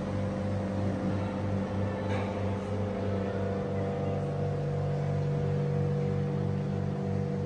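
Steady low hum of running machinery with a regular low pulse, several beats a second.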